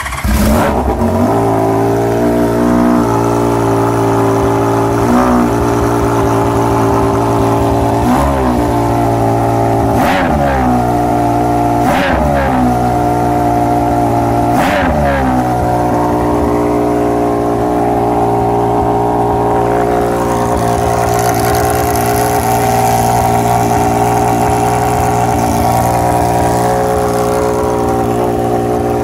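Honda CBX1000's air-cooled inline-six engine running through a titanium aftermarket exhaust, just after starting. About five quick throttle blips come in the middle, each rising and dropping straight back to idle, then it settles into a steady idle.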